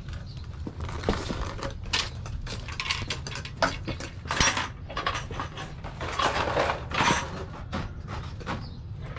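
Lengths of white vinyl siding and trim clattering, rattling and scraping as they are picked up and handled, with scattered sharp knocks and footsteps on brick pavers.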